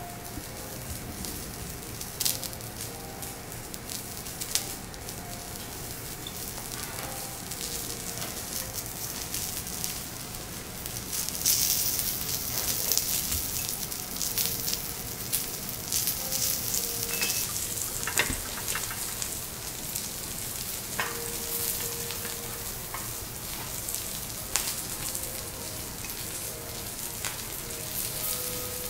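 Striploin steak and vegetables sizzling on a hot steel teppanyaki griddle, a steady hiss that grows louder about a third of the way in, with scattered clicks and taps of metal tongs and spatula on the griddle.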